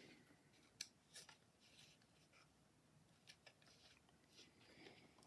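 Near silence, with a few faint clicks and rustles of cardstock pieces being handled as a paper washer is threaded onto a brad.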